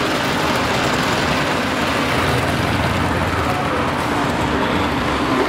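Steady rumble of an S-gauge model passenger train rolling past over the track.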